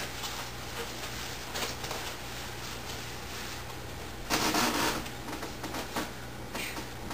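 Steady low electrical hum and hiss, with a brief rustling noise a little past four seconds in and a couple of fainter ones before and after.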